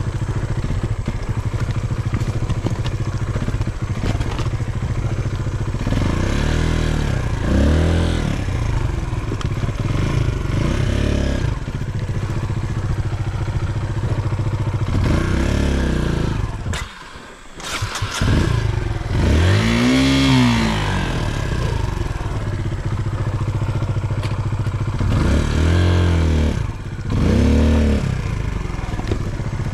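Kawasaki KLX150 trail bike's single-cylinder four-stroke engine running at low speed over a rocky trail, with short throttle blips that rise and fall in pitch every few seconds, and loose rocks clattering under the tyres. The engine note drops away briefly about seventeen seconds in, then comes back.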